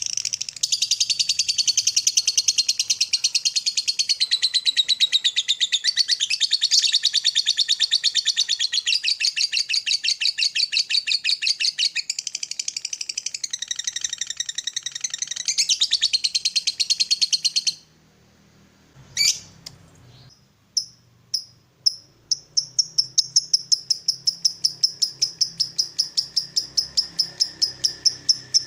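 Lovebird giving its long, very rapid chattering trill (the ngekek), which cuts off suddenly after about eighteen seconds. After a short pause comes a single sweeping call, then a run of short chips that quicken into an even series of about four a second.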